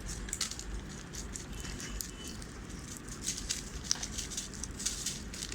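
Magic Pops popping candy crackling in the mouth: many small, irregular pops and ticks, still going after the candy is swallowed.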